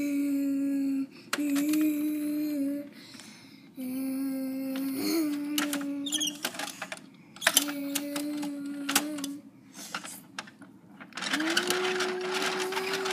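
A child humming a low steady note in about five held stretches of one to two seconds each, the last rising in pitch as it starts, as a mouth-made truck engine sound. Sharp clicks from the plastic toy garbage truck fall between the notes, and a rustling scrape joins near the end.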